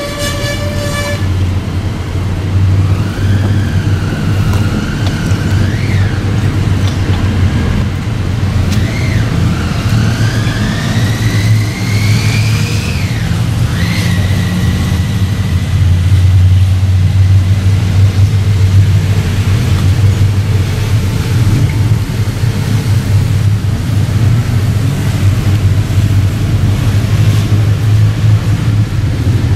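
Steady low rumble of road traffic, with a few sliding whines that rise and fall in the first half. A held musical note with a horn-like tone ends about a second in.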